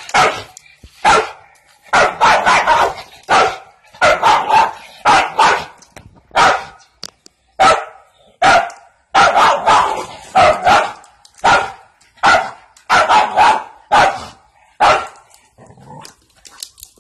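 A dog barking over and over in quick runs of two to four sharp barks with short pauses between, the barks growing fainter and sparser near the end.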